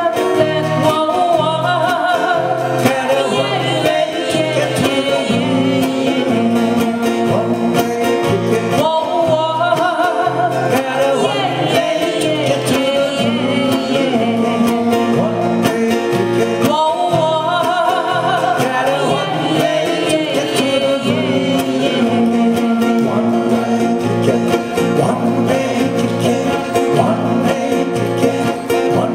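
Live acoustic guitar band: four acoustic guitars strummed together in a steady rhythm under singing into microphones.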